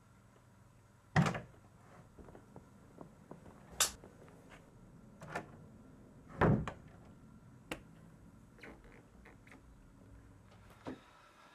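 A door being handled in a small room, with someone moving close by: a few sharp knocks and thuds, the loudest about a second in and about six and a half seconds in, with lighter clicks between.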